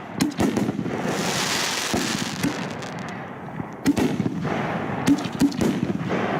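Lit firework burning with a steady hiss, broken by scattered sharp cracks and pops; the hiss eases for a moment just past the middle, then picks up again.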